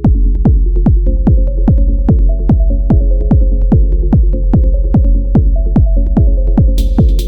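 Elektron Model:Cycles groovebox playing a techno pattern: a four-on-the-floor kick drum with a falling pitch, about two beats a second, drops in at the start over a held bass and synth line. A hissy cymbal or hi-hat layer joins near the end.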